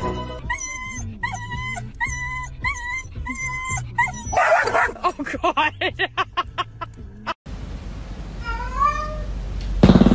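A dog's repeated high whining calls, then a quick run of short yips. After that a cat gives one meow falling in pitch, and a short loud burst comes near the end.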